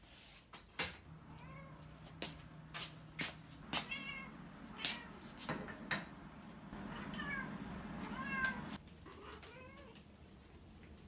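Munchkin cat meowing repeatedly, about five short meows that rise and fall in pitch, asking for a treat. Sharp clicking taps sound between the meows in the first half.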